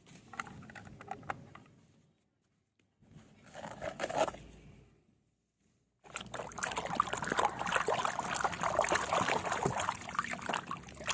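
Water pouring and splashing over a plastic toy garbage truck as it is washed clean. It starts faint, cuts out twice briefly, then runs louder with rapid small splashes from about halfway through.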